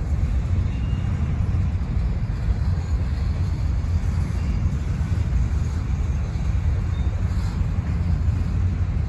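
CSX grain train of covered hopper cars rolling past, a steady low rumble of wheels on the rails.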